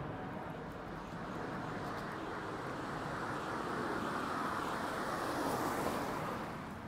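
A vehicle passing on a wet road: its tyre hiss swells to a peak about five to six seconds in, dropping in pitch as it goes by, then fades.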